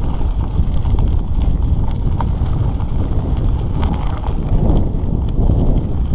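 Wind buffeting the microphone while riding a bicycle on a gravel road, a steady low rumble. Tyres crunch over the loose gravel, with scattered small clicks and rattles from the stones and the bike.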